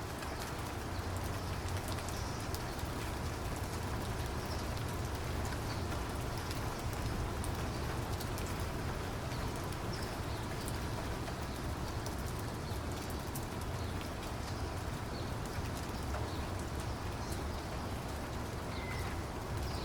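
Steady rainfall, with a dense patter of individual raindrops ticking close by over a constant low rumble.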